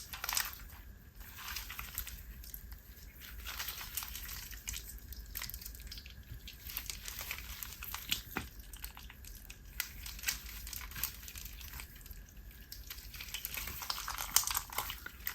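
Hands squishing and pressing a wet, jiggly slime mixed with foam beads, making an irregular run of small sticky crackles, pops and wet clicks.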